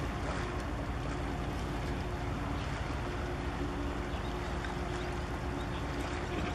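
Large cable-laying ship under way close by: a steady engine hum with a few constant tones over an even rush of low noise.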